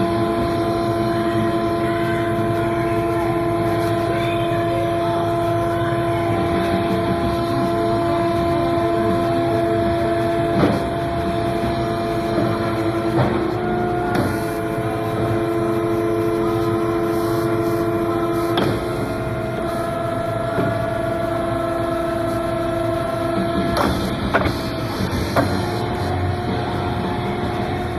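Hydraulic power unit of an Ercolina GB100 CNC mandrel bender running with a steady whine as the machine bends 3-inch square tube, with a few sharp clicks and knocks along the way.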